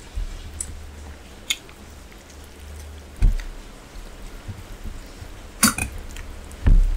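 Eating by hand from steel plates: fingers mixing and squishing rice and curry, and chewing. Dull thumps come a few times, the loudest about three seconds in and near the end, with a sharp click about five and a half seconds in.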